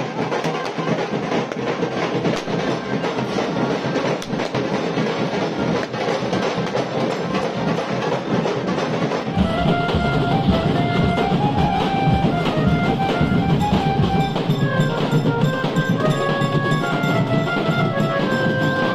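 Loud drum-led music with dense, fast percussion. About halfway through, a melody of held notes comes in over a deeper, heavier beat.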